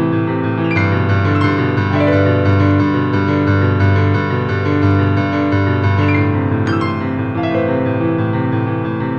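Background piano music: sustained chords over a steady, repeating pattern of low notes.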